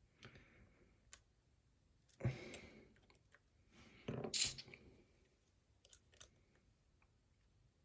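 A lock pick and tension wrench clicking and scraping inside the ZM78 Clockwork challenge lock while its pins are probed under light tension. There are small scattered clicks and two louder scraping, crunching noises, about two and four seconds in.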